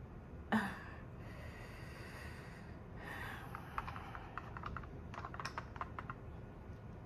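Makeup brush tapping and working in a plastic eyeshadow palette: a quick run of light clicks in the second half. A short sharp sound about half a second in is the loudest thing, with soft hissing noise after it.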